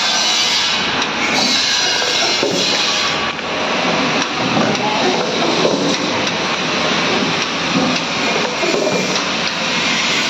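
Semi-automatic tin capping machine running: a loud, steady mechanical din from its rotary table and capping head, with occasional light knocks.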